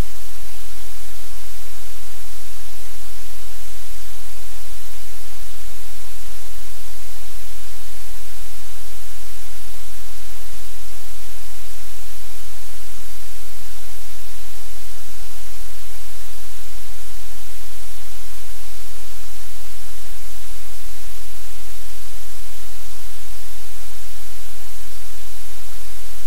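Loud, steady static hiss spread evenly across all pitches, with a low hum beneath it and no change throughout.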